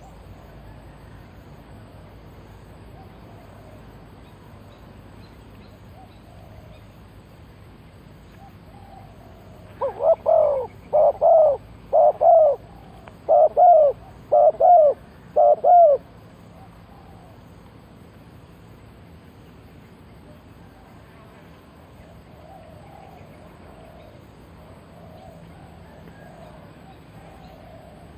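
Spotted dove cooing: one bout of about seven deep coos in short phrases, starting about ten seconds in and lasting some six seconds, over faint background.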